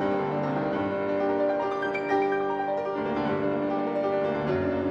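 Background music: gentle piano with held notes.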